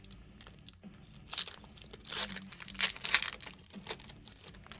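Foil trading-card pack wrapper crinkling and tearing as it is ripped open by hand, in several short bursts, loudest about three seconds in.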